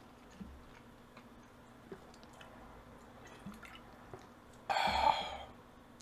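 A few faint clicks and taps, then, about five seconds in, a short sloshing burst as a drink is taken from a clear plastic bottle.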